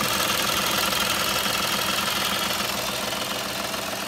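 Perodua Viva's three-cylinder engine idling, good and steady, after its throttle body and idle control valve were cleaned to cure a rough, shaking idle.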